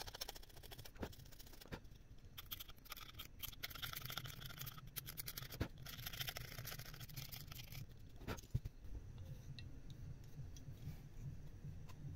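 A hobby knife tip scraping the green solder mask off a circuit board's copper pads and traces: rapid fine scratching in short spurts, with a couple of light taps. The scratching stops about two-thirds of the way through.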